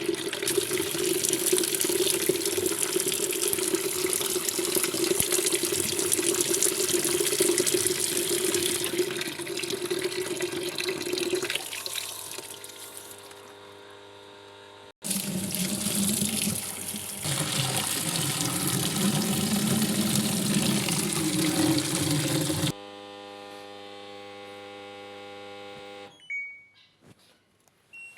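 Washing machine water inlet valve open, with water rushing into the machine in a loud, steady hiss over a humming tone. This loud valve noise is the fault being diagnosed, alongside an IE (inlet error) code and slow cycles. The flow stops about 15 s in, runs again, then gives way to a steady electrical hum and a few short beeps near the end.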